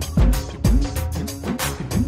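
Background music with a steady beat, about two deep drum hits a second.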